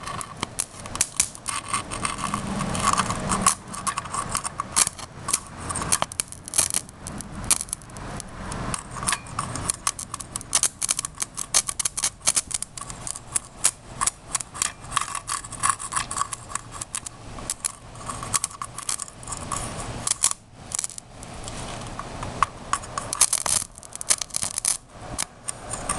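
Electric arc from a high-current power-supply lead touched and dragged across motherboard components, crackling and sizzling with rapid irregular snaps throughout, as sparks fly and the board's surface burns.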